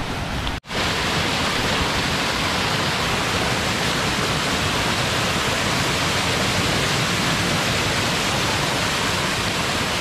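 Small waterfall rushing steadily down a narrow rock chute, heard close up, after a brief break in the sound about half a second in.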